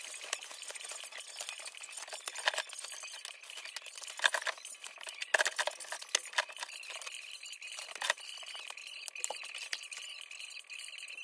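Household items being handled and sorted: scattered light clicks, knocks and clinks with rustling. A faint steady high whine joins about two-thirds of the way in.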